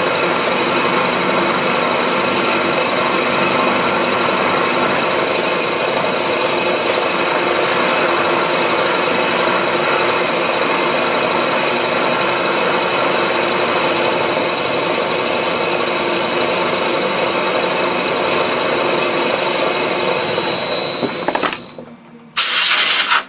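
Milling machine running steadily under load, drilling a hole in a steel wood chipper blade, with a steady high whine over the machine noise; it shuts down about 21 seconds in. About a second later comes a brief, loud hiss.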